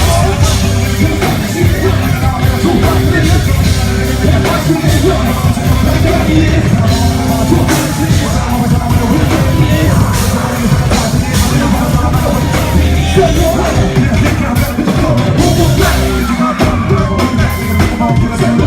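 Loud live rock and hip hop music with a pounding beat, and a voice singing and yelling over it.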